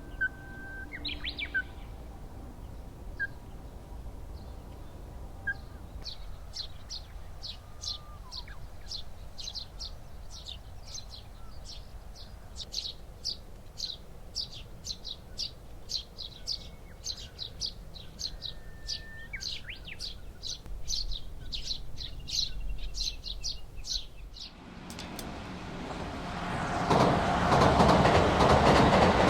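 Small birds chirping in the morning, one repeating a short high call about two or three times a second for much of the time. Near the end a loud rumble builds up and holds, a train passing close by.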